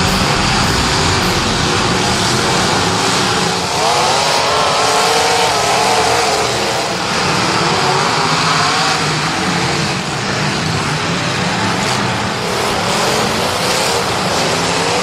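Several car engines running hard under load, their pitch rising and falling as they rev, with dirt-track racing noise behind them.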